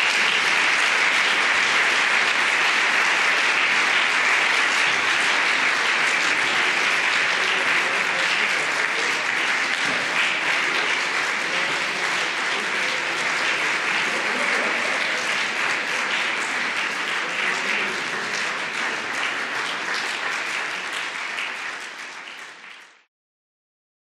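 An audience applauding steadily. The applause fades a little toward the end and then cuts off abruptly.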